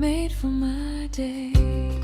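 Soft, slow background music: a gentle melody over held bass notes, with a beat landing about one and a half seconds in.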